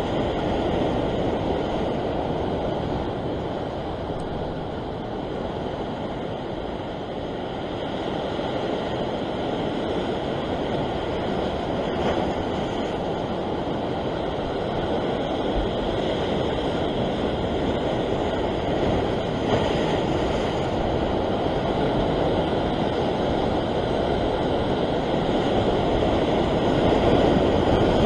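Ocean surf surging and breaking against a rock ledge: a steady, rumbling wash of water noise that swells and eases slowly, a little louder near the end.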